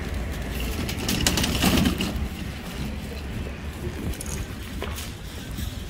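Loaded shopping trolley being pushed over pavement and car-park asphalt: its wheels rumble steadily and the wire basket and contents rattle and clink, most busily about a second in.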